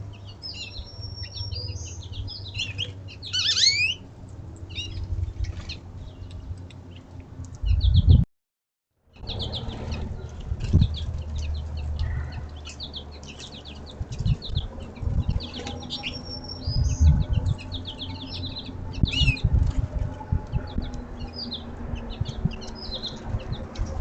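Small songbirds chirping and calling over one another at a bird feeder, many short high notes and quick trills, with low thumps and fluttering underneath. The sound cuts out completely for under a second about eight seconds in.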